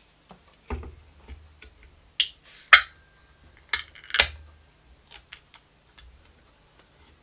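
A beer can being opened by its ring-pull: sharp metal clicks, a short hiss and a loud crack about two and a half seconds in, then more clicks from the tab. Light knocks of the can and glass on the wooden table come before.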